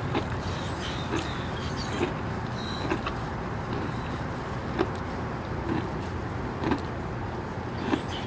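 Black rhinoceros chewing hay, a short crunch about once a second, over a steady low background rumble.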